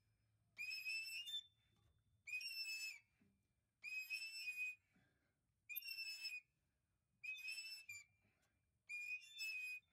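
Reamer turned by a T-handle wrench, cutting through the center pin bushings in a VW Bus front beam. It squeals with each turning stroke: six high-pitched squeals, each under a second, about every one and a half seconds.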